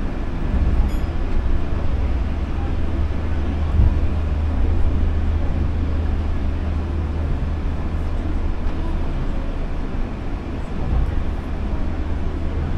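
Osaka Monorail train running along its elevated straddle-beam guideway on rubber tyres, heard from inside the front of the car as a steady low rumble with a faint hum.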